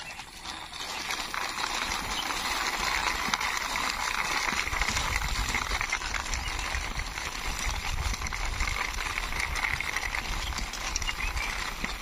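Plastic wheels of a hand-pushed toy bulldozer rolling along rough concrete, a steady gritty rattle made of many small clicks.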